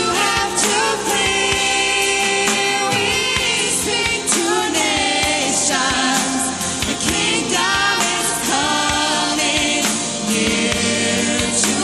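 Live Christian worship music: a band playing, with voices holding long, wavering notes over a steady beat.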